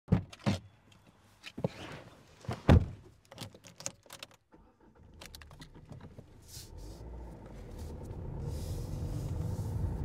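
A driver getting into a car: a series of clicks, knocks and thunks from the door, keys and seat, the loudest about two and a half seconds in. About five seconds in, a low car running noise starts and builds steadily as the car pulls away.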